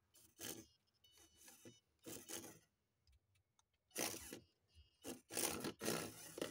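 Turbo Racing micro RC car driving in short spurts on a wooden tabletop: a string of brief scrapes of its tyres on the wood, some carrying a high whine from its small electric motor and gears, the loudest near the end.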